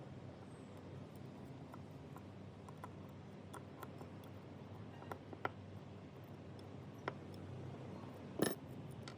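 Sparse light clicks and taps of small hard parts being handled, with a short cluster of louder taps near the end, over a faint steady hum.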